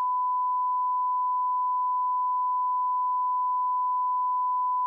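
Steady 1 kHz line-up test tone: a single unbroken pure beep at an even level, the audio reference that goes with colour bars. It cuts off suddenly near the end.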